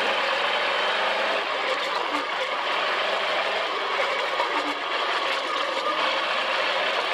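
Dune buggy engine running steadily as the buggy drives across sand, with a dense rush of wind and driving noise.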